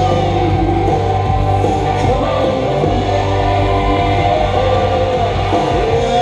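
Loud music with singing, a steady low bass line under it.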